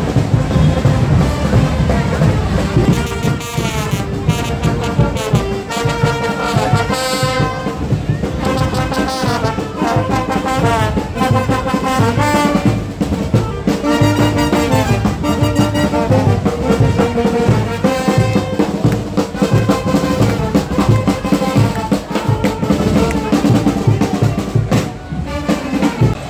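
Live street brass band of trumpets, trombones and saxophones playing a lively carnival tune together over a steady drumbeat, close by.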